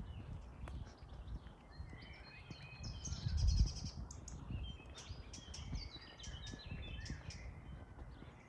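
Several songbirds chirping and singing, with a quick high trill about three seconds in, over the low thuds of footsteps walking.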